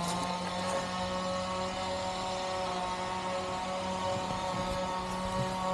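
A steady engine drone holding one unchanging pitch.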